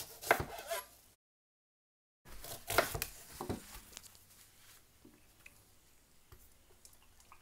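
Kitchen handling noises: a few knocks and clatters of utensils and cookware, cut off for about a second, then a cluster of clatters followed by faint scattered ticks.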